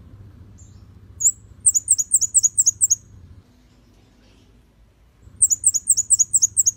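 Scarlet-backed flowerpecker calling: two quick runs of about eight very high, thin notes, each a fast downward slur, the first about a second and a half in and the second near the end, over a faint low hum.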